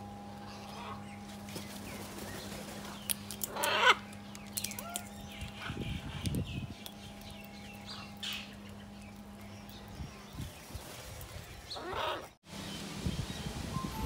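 Green-winged macaws calling with harsh squawks, a loud one about 4 seconds in and another near the end, amid scattered sharp clicks, over a faint steady hum.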